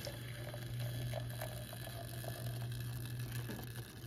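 Just-boiled water pouring from a kettle into a glass mason jar, a faint steady filling sound over a steady low hum.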